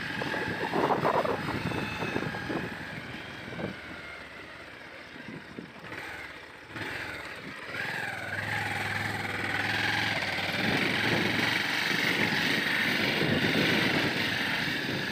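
Motorcycle engine running, with wind noise on the microphone and a few knocks in the first few seconds.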